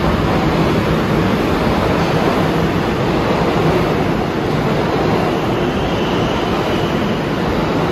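R188 subway train running past along the station platform: loud, steady wheel and track noise, with a faint rising whine about six seconds in.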